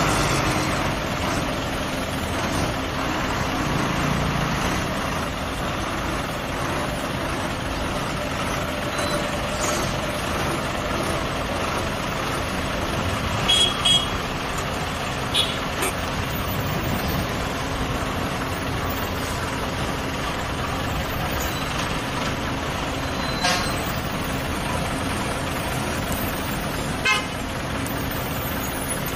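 Road traffic crawling in a jam: the engines of a bus, a lorry and cars running at low speed, with several short horn toots.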